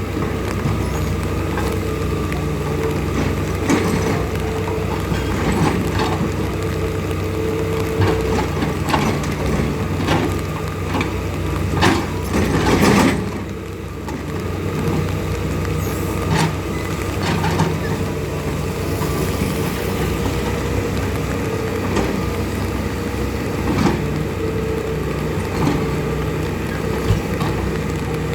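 A heavy engine running steadily, with scattered clanks and knocks and a louder rumbling patch about halfway through.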